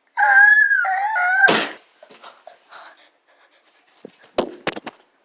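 A loud, high-pitched wavering call lasting about a second and a half, broken once partway through. It is followed by faint scattered rustles and a few sharp clicks near the end.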